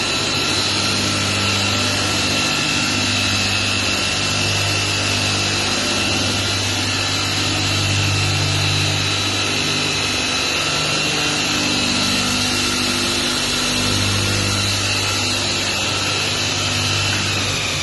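Vertical belt grinder running, a steady high whine over a rasping belt noise and a pulsing low hum. Near the end the whine starts to fall in pitch.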